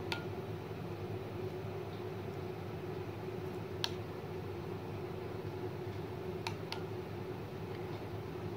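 Metal spoon stirring melted chocolate in a glass bowl, clinking sharply against the glass once near the start, once about four seconds in and twice in quick succession later, over a steady background hum.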